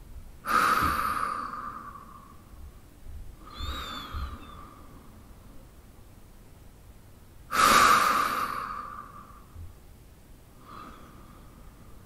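A man breathing slowly and deeply in his sleep. There are two loud breaths about seven seconds apart, each starting sharply and trailing off slowly, with quieter breaths between them; one of the quiet breaths carries a faint whistle.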